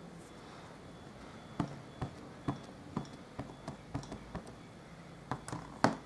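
Light taps of an ink pad dabbed onto a masked rubber stamp to re-ink it, about two a second with a quicker run in the middle and one sharper tap near the end.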